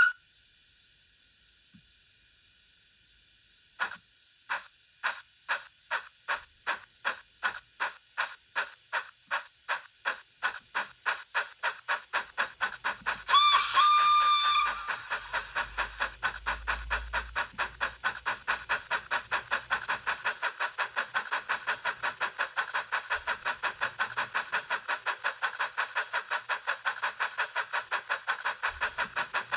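Sound decoder in a Heljan 009 model steam locomotive playing a Wheeltappers narrow gauge steam sound file through its small speaker. A short sharp sound at the start and a steady hiss lead into exhaust chuffs about four seconds in, which quicken steadily as the loco picks up speed. A whistle blast of about a second and a half sounds near the middle, and then the chuffs run on fast and even.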